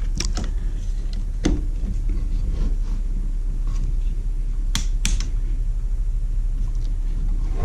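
Handling noise: a few light clicks and knocks over a steady low rumble, with a pair of sharper clicks about five seconds in.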